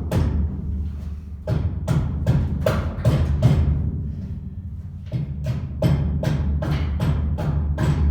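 Background music with a steady percussive beat over a low bass line.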